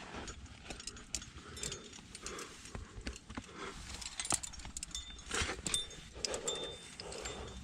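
Irregular clicks, clinks and scrapes of a climber's gear and body rubbing against rock while working up a narrow chimney.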